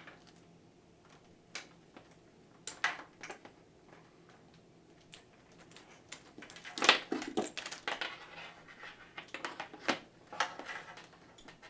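Hands handling power and SATA cables and their plastic connectors inside a PC case: scattered clicks and rustles, a cluster of the loudest ones about seven seconds in.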